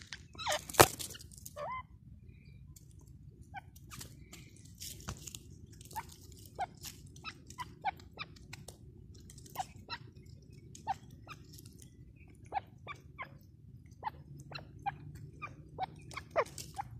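Grey francolins pecking at dry, crumbly soil close to the microphone: a string of sharp, irregular beak taps and small crunches, roughly one or two a second, with one much louder knock about a second in.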